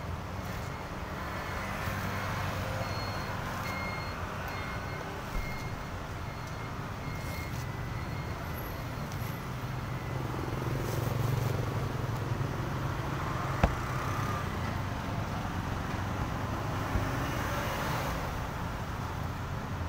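Road traffic noise, with a motor vehicle's engine rumbling and swelling to its loudest about halfway through. There is a single sharp knock a little after that.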